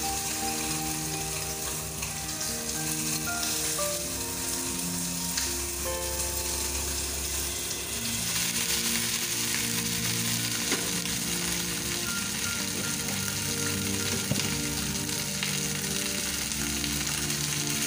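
Oil sizzling steadily as a cornstarch-coated whole fish shallow-fries in a stainless steel wok, a little louder from about eight seconds in. A background tune of held notes plays under it.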